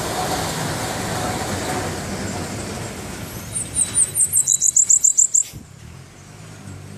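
Caged sibito peito branco songbird singing one quick, high-pitched trill of about a dozen short down-slurred notes, a little past halfway through, over a steady rushing background noise.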